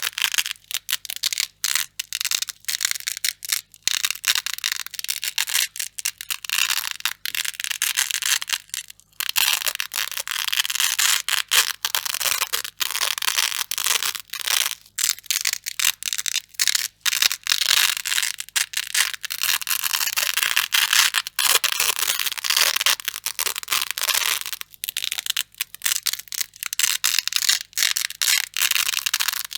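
Velcro (hook-and-loop fastener) being ripped apart again and again with a crunchy tearing sound. It comes as short quick tears at first and again near the end, with longer, almost continuous ripping through the middle.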